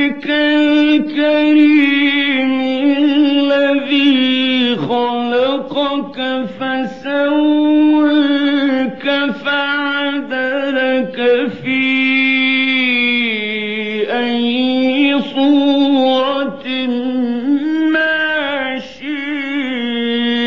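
Male Quran reciter chanting in the melodic mujawwad style: one voice holding long, ornamented notes that waver and step up and down in pitch, with a few brief breaks between phrases.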